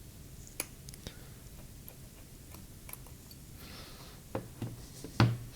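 Scattered small clicks and taps of a precision screwdriver and tiny screws being handled on a work bench while opening a phone, with a louder knock near the end.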